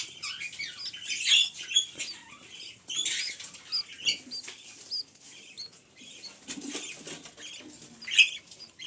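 Budgerigar nestlings giving short, high, squeaky cheeps, often several a second, with soft rustling from being handled.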